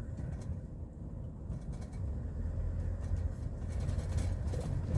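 Cab noise of a Hyundai Porter II truck on the move: a steady low engine and road rumble that grows a little louder about two seconds in.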